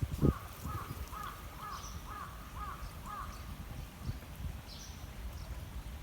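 A crow cawing in a quick series of about seven or eight short calls, roughly two a second, stopping a little past halfway. Underneath is a low rumble, with a thump just after the start and a few faint high chirps from small birds.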